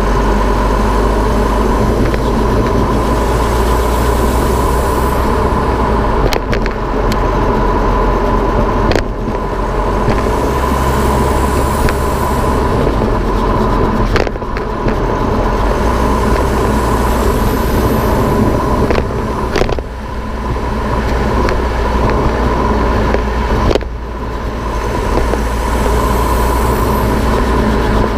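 Tyre and road noise recorded inside the wheel well of a moving Infiniti Q50, with a steady hum under it, the wheel noise being checked. A few sharp knocks are heard along the way, each followed by a brief drop in the noise.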